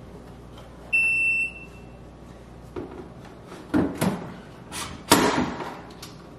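A KitchenAid refrigerator's door-open alarm gives one high beep about a second in, the sign that the doors have been left open. Several sharp knocks and clunks follow as plastic bins and shelves are fitted into the fridge.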